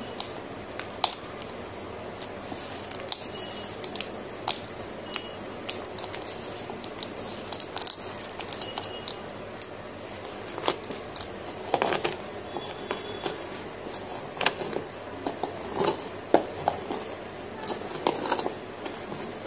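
Broken slate pencil pieces being crushed and ground with a pestle in a bowl and squeezed by hand: irregular sharp crunches and clicks, a few louder ones in the second half.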